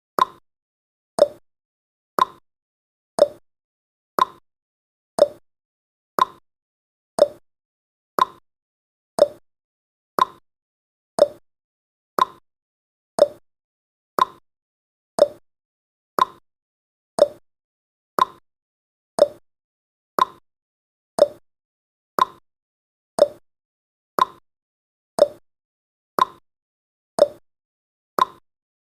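Countdown timer's clock-tick sound effect: one short, sharp tick every second, alternating between a higher and a lower pitch like a tick-tock.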